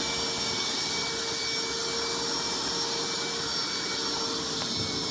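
Steady hiss of hot water spraying under pressure from a burst pipe, with a faint steady hum running under it.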